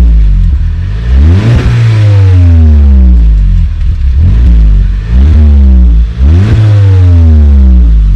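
Volkswagen Scirocco 2.0 TSI turbocharged four-cylinder revved through its exhaust about four times, each rev rising quickly and falling back slowly to a low idle.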